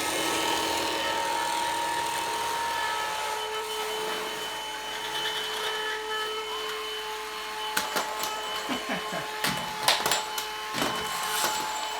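Vacuum cleaner running steadily with a whining motor, sucking up the metal filings from a freshly cut fork steerer tube. In the last few seconds there is a run of sharp knocks and clattering.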